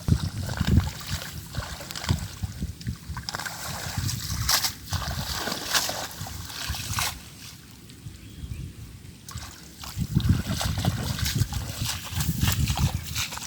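Water splashing and sloshing in irregular bursts, with a low rumble under them and a quieter spell about two thirds of the way through.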